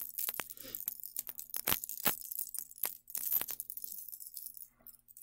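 Floral-cut mother-of-pearl pieces on a gold-tone chain necklace clinking against each other as the necklace is handled: a run of light, irregular clicks, densest about three seconds in.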